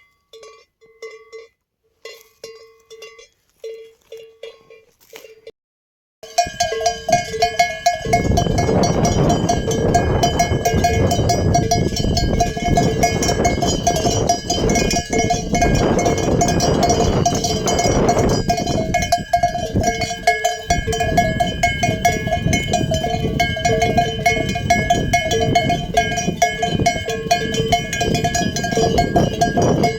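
Livestock bells on a sheep flock clanking. First a single bell rings in an irregular rhythm. After a brief gap about six seconds in, many bells clank together over a steady rushing noise.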